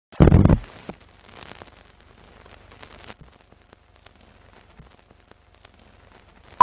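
Sound effects for an animated film countdown leader. A loud low thump comes just after the start, then faint crackle with scattered clicks, then a short, sharp, high beep at the very end.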